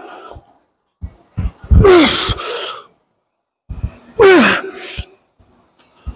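A man grunting and exhaling hard on each rep of a cable lat pulldown, twice: about two seconds in and again just past four seconds, each effort a strained groan that falls in pitch. He is straining on a hard set near failure. Short low knocks sound between the efforts.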